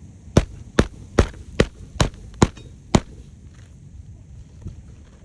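Hammer driving roofing nails into asphalt shingles: seven sharp, even blows at about two and a half a second, stopping about three seconds in, then a few faint ticks.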